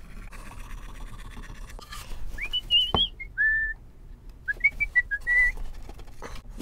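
A person whistling a few short notes in two brief phrases, with one sharp knock in between.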